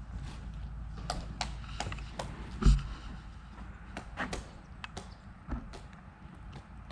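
Pileated woodpecker chiseling into wood while digging for insects: irregular sharp knocks and chips, with one heavier strike a little under three seconds in.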